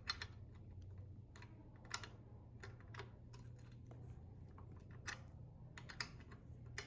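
Faint, irregular small clicks and ticks of hands working on a bicycle's front derailleur cable and parts, over a low steady hum.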